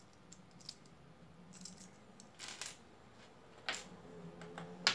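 Small plastic LEGO pieces clicking as they are handled and fitted together: a few separate sharp clicks, two close together midway and the loudest near the end.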